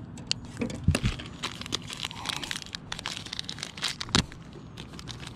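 Crinkling and rustling of a small plastic-and-paper tackle package being handled and opened, with two dull knocks, about a second in and again after four seconds.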